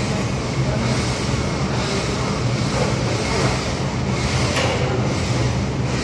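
A steady mechanical drone: a low hum under a constant rushing noise.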